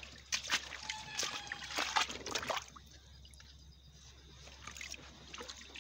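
Shallow water trickling and splashing in a nearly dried-up channel. Irregular small splashes come in the first half, and it goes quieter after about two and a half seconds.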